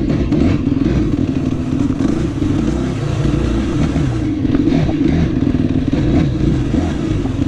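Motocross dirt bike engine running, its revs rising and falling unevenly.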